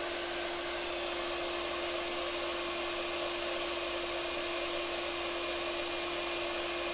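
Handheld iTeraCare terahertz blower running steadily, its small fan giving an even whir with a constant hum.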